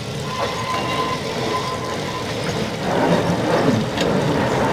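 Electric trolley car running on the rails, with a steady high tone for about two seconds, then getting louder from about three seconds in.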